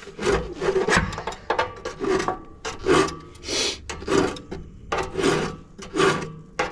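Repeated rasping and scraping strokes, about two a second, as material is trimmed away from the stove's back brick.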